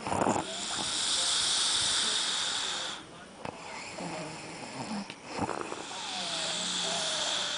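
Person snoring: a short rough snort, then a long hissing breath of about two and a half seconds. The same cycle comes again about five seconds in.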